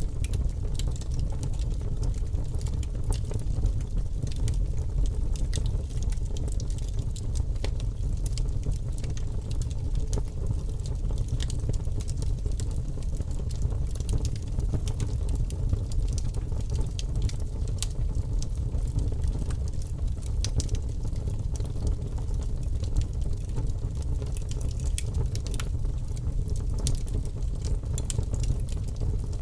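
Steady ambience bed: a continuous low rumble with frequent small crackles and pops scattered throughout.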